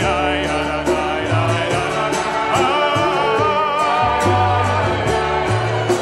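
A group of voices singing a Jewish liturgical melody together, backed by acoustic guitar, upright bass, violin and a hand drum keeping a steady beat.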